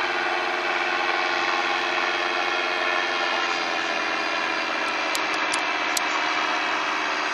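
Paramotor engine and propeller running steadily in flight overhead, the pitch easing slightly lower about three seconds in. A few faint high ticks about five seconds in.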